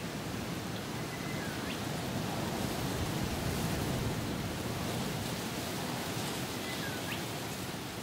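Strong wind rushing through rainforest vegetation, swelling a little midway. A bird calls faintly twice, each a short note that dips and then sweeps sharply up in pitch.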